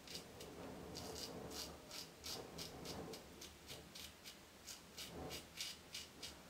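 Mongoose Alumigoose aluminium safety razor scraping through lathered stubble in quick, short strokes, about three a second, faint and scratchy.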